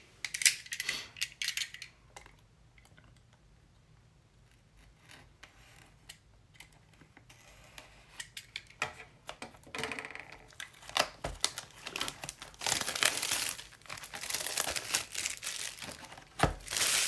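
Plastic wrapping crinkling and tearing as a trading-card box is handled and unwrapped, with scattered light clicks and taps. The crinkling is heaviest in the second half.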